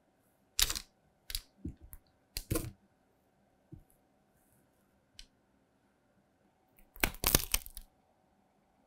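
Crisp chocolate puffed-rice bars cracking and crunching: a few short, sharp cracks spread over the first few seconds, then a denser run of crunching near the end.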